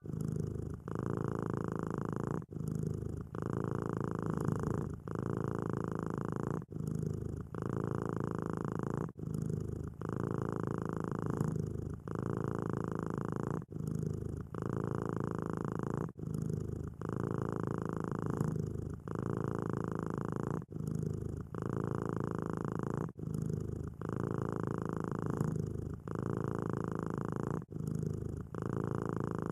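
A kitten purring steadily and rhythmically, the purr breaking off briefly every second or two.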